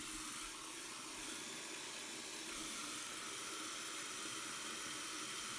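Water running steadily from a tap into a sink, as hands are washed.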